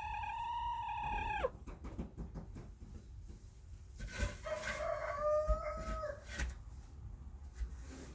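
Domestic hen cooing: a long held note that drops away about a second and a half in, then a softer wavering call from about four to six seconds in.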